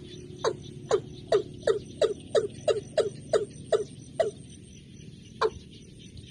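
Watercock calling: a run of about a dozen short notes, each falling in pitch, about three a second. It breaks off a little after four seconds in, and one last note comes near the end.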